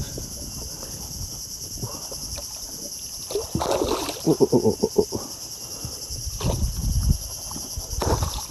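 Hooked Papuan black bass thrashing and splashing at the water's surface beside the boat, in a flurry about halfway through, then a few low thumps. Steady high insect chirring runs behind.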